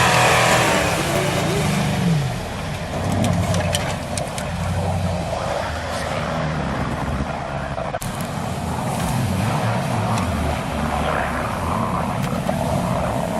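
SUV engine running and working off-road, with tyre and body noise and scattered sharp knocks throughout.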